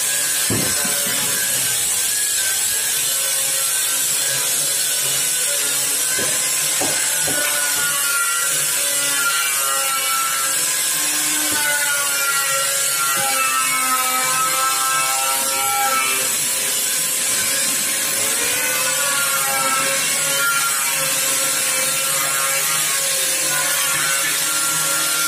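Handheld angle grinder with a polishing disc running against stainless steel sheet, buffing the panel as a finishing step. It runs without a break, and its motor pitch wavers up and down as the disc is pressed and moved.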